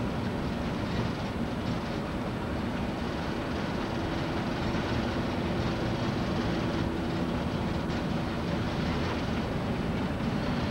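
Steady road and engine noise heard from inside a moving vehicle: a low rumble with tyre hiss, and a faint hum that comes in for a few seconds in the middle.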